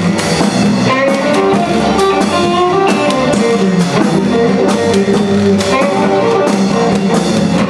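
Live blues band playing an instrumental passage with no vocals: electric guitars over bass and drums, keeping a steady beat.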